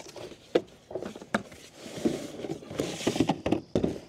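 Cardboard box being opened by hand and a cook set in a fabric drawstring bag pulled out of it: an irregular run of cardboard rustles, scrapes and light knocks.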